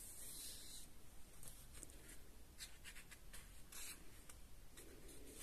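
Faint swish of a coloring book's paper page being turned, then soft, scattered rustles of hands rubbing and smoothing the paper.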